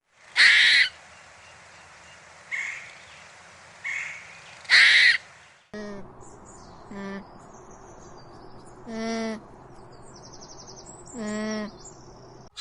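Harsh, crow-like cawing: four rough calls, the last the loudest. After a cut, a different animal gives four drawn-out calls with a clear, wavering pitch, while small birds chirp faintly behind.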